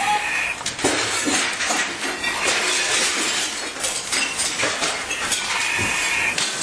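A room fire burning fully involved, crackling with a steady rush and many sharp snaps and pops. A high steady tone sounds briefly at the start and again near the end.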